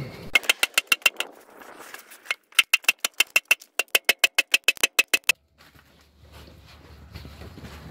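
Hand hammer tapping on the stamped-steel oil pan of a Subaru EJ25 engine, quick firm taps at about six a second, each with a short metallic ring: a run of about seven, a brief pause, then about twenty more. The taps jar the pan loose from its heated RTV sealant seal on the engine block.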